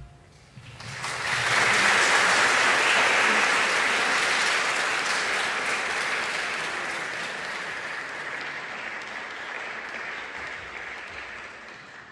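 Audience applauding at the end of a piece. The clapping starts about a second in, swells quickly to its loudest, then slowly dies away near the end.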